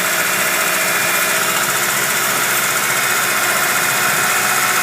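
Engine of a 2000 Ford Ranger idling steadily at a raised idle, which the owner suspects comes from a vacuum leak.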